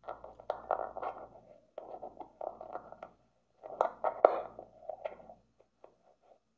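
Handling noise from a small wired microphone held close and fiddled with in the fingers: irregular rubbing and rustling with sharp clicks, thinning to a few separate clicks near the end.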